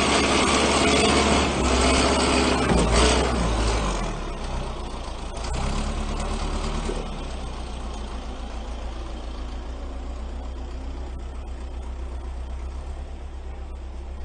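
A vehicle engine running, loud for about the first four seconds, then dropping to a quieter, steady run.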